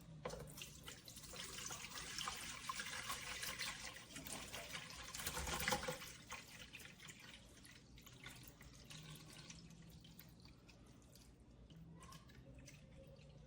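Distilled water poured from a one-gallon jug into the top-fill tank of a Dreo humidifier. The pour runs for about six seconds and is loudest just before it ends, then only a few faint drips follow.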